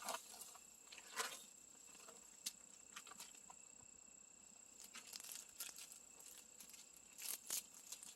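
Faint, scattered crinkling and rustling of a plastic instant-ramen packet being handled, with a few small clicks, over a faint steady high whine.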